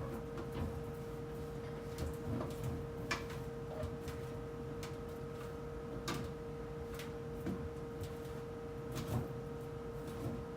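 Scattered light knocks and clicks of containers, shelves and drawers being handled while a refrigerator is cleaned out, over a steady electrical hum.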